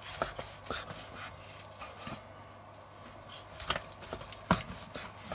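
Carving knife slicing through a grilled porterhouse steak on a wooden cutting board, with scattered light scrapes and taps of the blade and carving fork against the board. The sharpest taps come about three and a half and four and a half seconds in.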